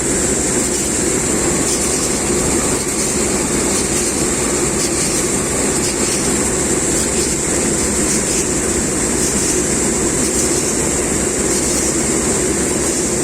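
Rice combine harvester running steadily at work in the paddy field, its engine and threshing machinery making a constant loud drone.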